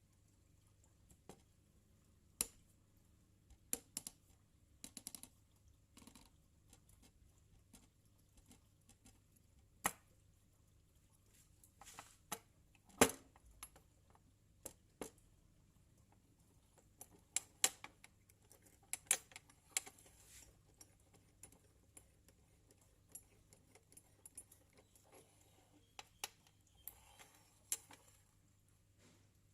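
Scattered light clicks and knocks at irregular intervals, as of small metal parts and tools being handled, with the sharpest knock about 13 seconds in.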